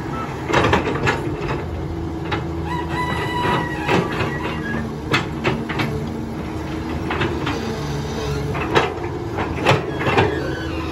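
Caterpillar crawler excavator's diesel engine running steadily while the bucket scrapes and digs the dirt fill, with sharp clanks and knocks every second or two.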